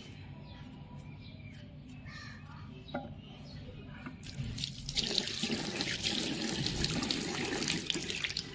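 Water from a tap running and splashing into a ceramic washbasin. It starts about four seconds in, gets louder a second later, and stops near the end.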